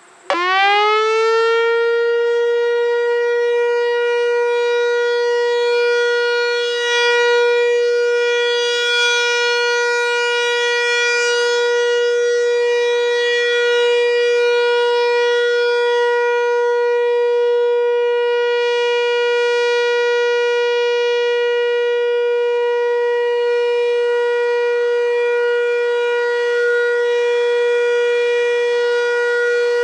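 Whelen WPS-4004 electronic outdoor warning siren sounding its Alert signal, loud: the tone sweeps quickly up in pitch just after the start and then holds one steady note. It is sounded as a routine monthly test, not a real warning.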